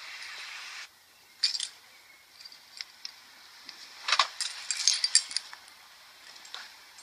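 Car keys jangling and clinking, with knocks and rattles of handling, in irregular clusters about a second and a half in and again around four to five seconds in. A short steady hiss opens it.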